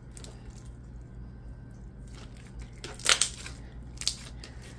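Hands kneading and stretching a clear-based slime, with soft squishing and two sharp bubble pops, about three seconds in and again a second later.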